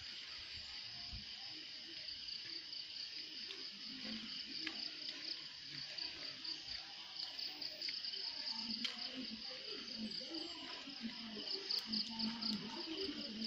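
Steady chorus of insects such as crickets or cicadas, a shrill high buzz with a fast pulsing texture.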